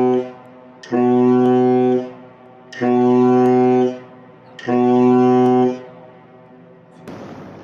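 Ship's horn sounding a series of blasts, each about a second long on the same steady note: the end of one blast, then three more. A short burst of noise follows near the end.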